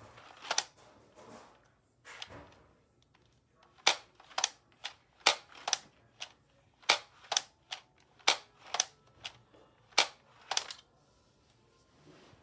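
LEGO toy gun's pusher mechanism being cycled by hand: sharp plastic clacks, mostly in pairs about half a second apart, repeated a dozen or so times from about four seconds in.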